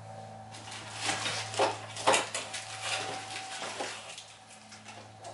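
Metal tools and hardware clinking and clattering as they are handled and set down, a busy run of clinks that is loudest about two seconds in and dies away by about four seconds.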